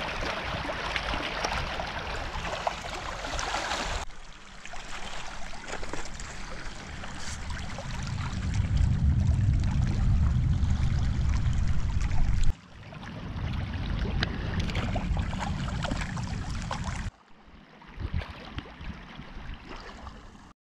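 Shallow water splashing and lapping, mixed with a strong low rumble on the microphone in the middle stretch. The sound changes abruptly about 4, 12 and 17 seconds in.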